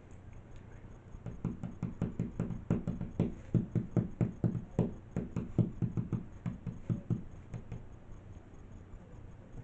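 Fingers tapping rapidly on a phone touchscreen while typing a text message, a quick run of dull taps that starts about a second in and stops near the end.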